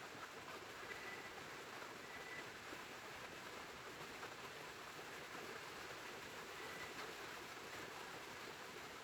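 Steady rain falling at night, an even hiss, with faint cricket trills a few times.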